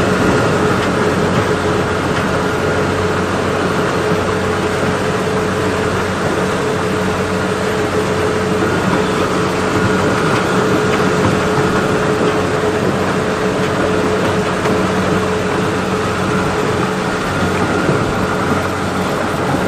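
Kubota farm machine's engine running steadily at a constant speed, an even mechanical drone with a steady hum.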